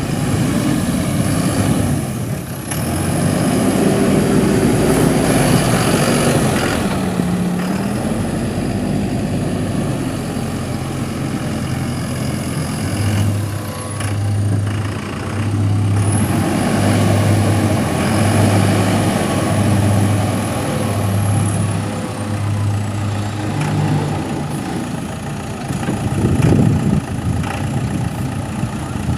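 Bobcat B900 backhoe loader's diesel engine running while the machine is worked, its note rising and falling with load. For about ten seconds in the middle it settles into a regular pulsing low throb, a little under one beat a second.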